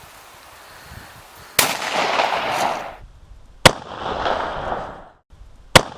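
Three 12-gauge pump-action shotgun blasts from a Norinco Homeland Defender, about two seconds apart, each followed by about a second of echo that fades away.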